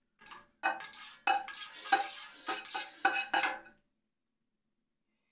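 A metal ladle stirring in a cooking pot, clanking against its sides about seven times with a ringing tone over some three seconds, starting just under a second in.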